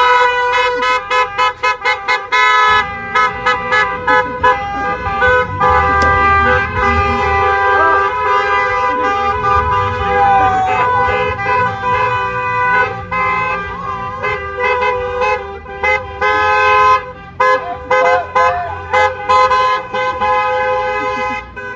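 Several car horns honking at once, long held blasts of different pitches overlapping, broken into quick short toots in the first few seconds and again near the end, over the low rumble of slowly passing cars.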